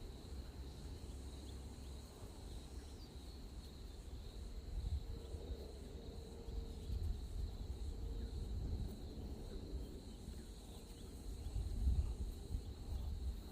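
Quiet rural outdoor ambience: a steady high-pitched insect drone over a low rumble.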